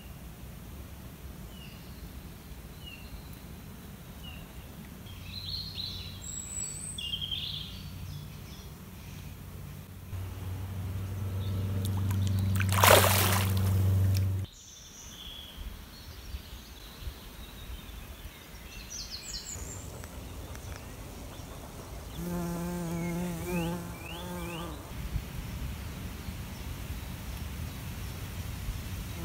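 Outdoor nature sounds: faint bird chirps, then a low buzz that swells, surges and cuts off sharply about halfway through. After the cut comes trickling stream water, and near the end a close insect buzz that wavers in pitch.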